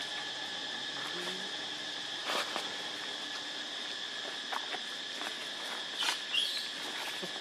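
Outdoor insects droning steadily at two high pitches, with scattered light taps and rustles, and a short high rising chirp about six seconds in.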